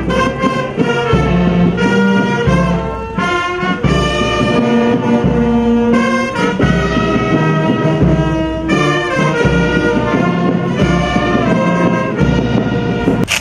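Brass band playing a tune, one sustained note after another, cut off abruptly near the end.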